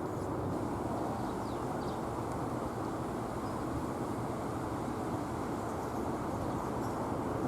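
Steady low rumbling outdoor noise, with a few faint high chirps about a second and a half in.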